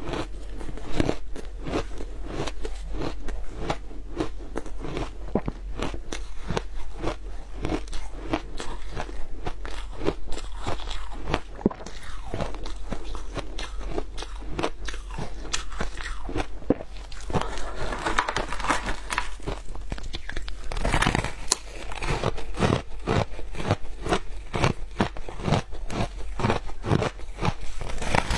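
Frozen shaved ice being bitten and chewed: a dense, continuous run of crisp crunches and crackles, with a louder stretch of crackling about two-thirds of the way through.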